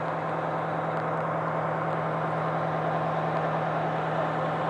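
Fire engine's engine idling, a steady low hum that holds one pitch, with a constant hiss over it.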